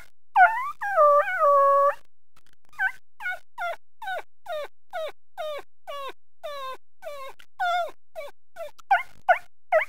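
A person imitating a puppy with their voice: a long whimpering whine, then a steady run of short, high, falling yips about two a second, which get louder near the end.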